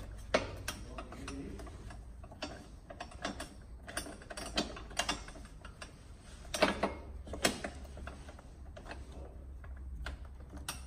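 Irregular metallic clicks and clinks of a hex key turning a bolt into a motorcycle pannier rack mount, with a few sharper clicks after about six and a half seconds.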